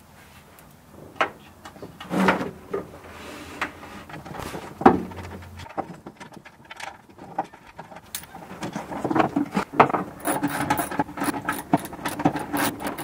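Irregular clicks, knocks and scrapes of a hand tool and small metal parts against a Mazda RX3's bare sheet-metal inner quarter panel as a window rail is fitted and screwed in. They grow busier in the second half.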